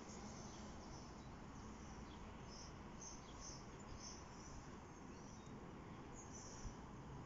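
Faint, short, high-pitched animal chirps coming irregularly, about every half second, over a low, steady background noise.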